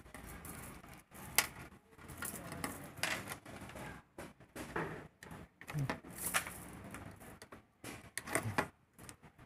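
Small plastic wire connectors being pushed into their sockets on an LCD TV's main board: scattered clicks and light knocks of hands working on the metal chassis, with a few sharper ticks.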